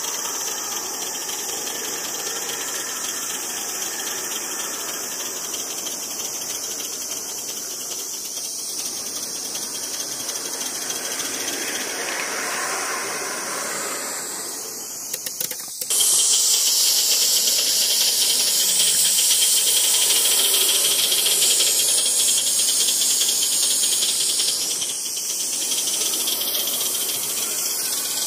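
2.5-inch gauge LBSC Ayesha live steam locomotive running, with a steady hiss of steam and a light rattle. About sixteen seconds in, a louder, higher steam hiss starts abruptly and carries on.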